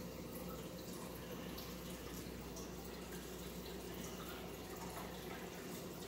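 Saltwater reef aquarium's circulating water: a steady trickle and splash with occasional faint drips, over a constant low pump hum.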